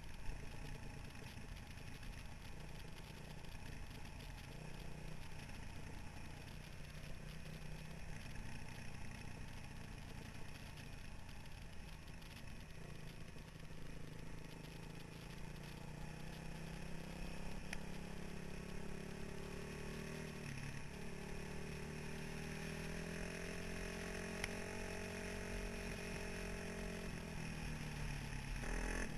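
2003 Honda CRF450R's single-cylinder four-stroke engine running under way on a dirt trail, heard from the rider's helmet. Its pitch climbs about halfway through and holds, with a short dip, then drops near the end.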